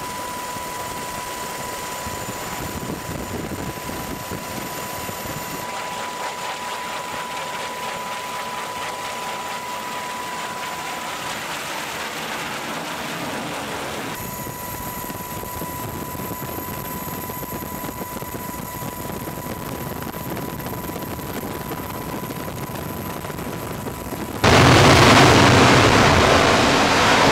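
Steady jet engine noise with a high whine. About 24 seconds in it jumps suddenly to a loud blast as an F-35C's Pratt & Whitney F135 turbofan runs up to full power on the carrier catapult for launch, easing slightly toward the end.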